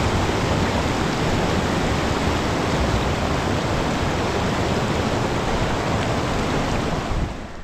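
A loud, steady rushing noise with no pitch that stops abruptly shortly before the end.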